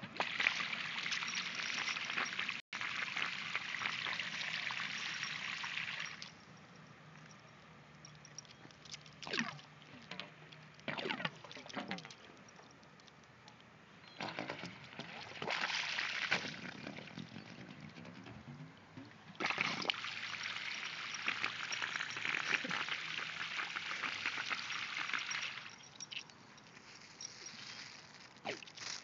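Water pouring and splashing from a sump pump's discharge onto pavement. It comes in spells of a few seconds, with quieter trickling between.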